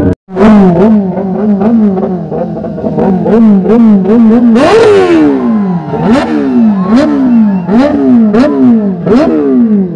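Kawasaki ZX-10R's inline-four engine being revved in repeated throttle blips, each rev rising sharply and falling back. From about halfway the revs are bigger and slower, with sharp cracks among them.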